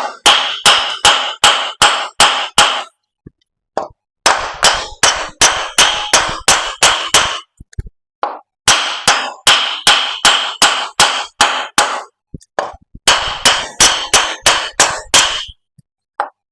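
Homemade Technyl (nylon) mallet tapping an air-cooled engine's finned cylinder barrel downward to break it loose from the block. The light strikes come in quick runs of about three a second with short pauses between runs, and each strike rings briefly.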